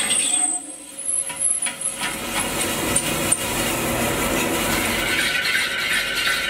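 Metal lathe turning a steel wheel rim, the cutting tool scraping and shaving metal into curled swarf. The noise drops away for about a second near the start, then the machining runs on steadily.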